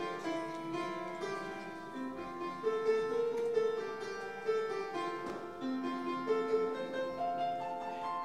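Music: a slow melody of long held notes, played through the hall.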